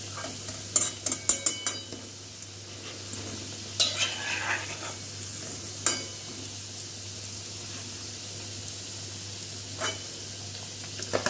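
Chicken nuggets sizzling steadily in hot oil in a metal kadai, with a slotted metal spatula clinking and scraping against the pan as the fully fried nuggets are lifted out. There is a quick run of clicks about a second in, and a few single clinks later.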